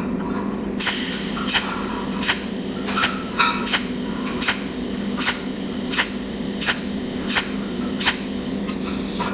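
Cold welding machine firing spot after spot, a sharp crackle about every three-quarters of a second as its tungsten electrode fuses filler wire into copper, over a steady low hum.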